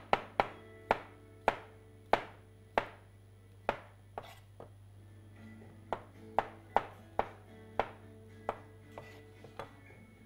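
Kitchen knife slicing boiled, skin-on potatoes against a cutting board: a string of sharp chops at an uneven pace, with a pause of about two seconds in the middle.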